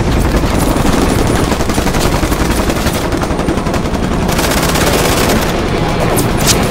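Many automatic guns firing at once in a continuous, rapid rattle of shots.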